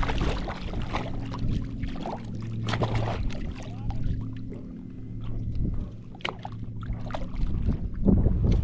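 A boat motor running with a steady low hum, with small knocks, clicks and splashes of water scattered over it.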